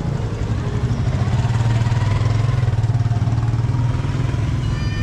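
A vehicle engine running close by: a steady low hum that grows louder in the middle and then eases off a little.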